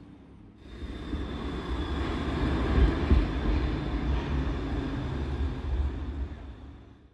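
Pesa Swing low-floor tram running along street track, a low rumble of wheels on rail that swells to a peak about three seconds in, with a few clacks, then fades as it pulls away.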